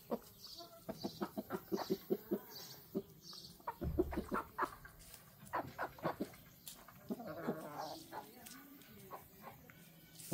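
Chickens clucking in quick runs of short notes, with a longer, rougher call a little past the middle. There is a brief low bump about four seconds in.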